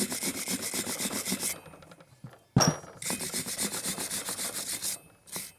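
Rhythmic rubbing strokes on the stump grinder's steel shaft as it is cleaned. The strokes come in two runs, with a single sharp knock between them about two and a half seconds in.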